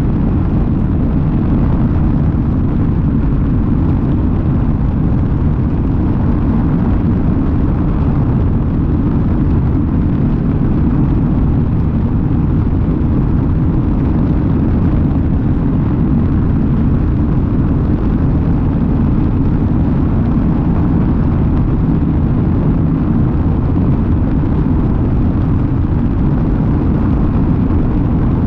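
Light aircraft in level flight: its engine and the rushing air make a loud, steady, low rumble, with wind buffeting the outside-mounted microphone.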